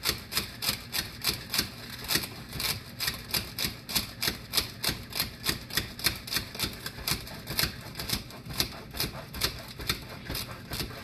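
Pampered Chef hand-pump whipped cream maker being pumped to whip heavy cream: an even, rapid clatter of plunger strokes, about four a second.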